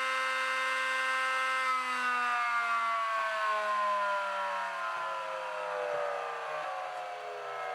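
Router motor with a round-over bit running steadily, then switched off and spinning down, its whine falling steadily in pitch.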